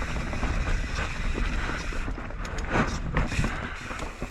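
Kona Process 153 full-suspension mountain bike rolling down a trail: wind rumbling on the microphone over tyre noise, with short knocks and rattles from the bike over the bumps.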